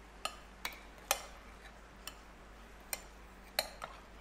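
A metal spoon clinking against a ceramic bowl as raw fish pieces are tossed with spices and oil: about seven short, irregular clinks.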